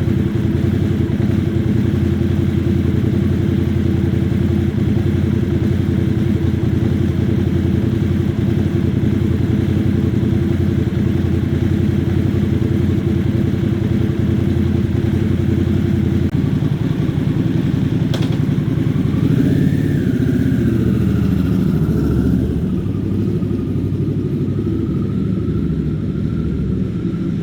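Harley-Davidson Sportster S's 1250 cc V-twin engine running steadily, its note shifting about two-thirds of the way in. A higher wavering whine joins near the end.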